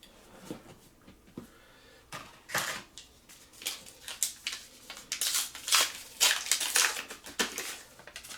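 Foil booster pack being torn open and crinkled by hand, with irregular crackles that grow dense and loud after about two seconds and stop near the end.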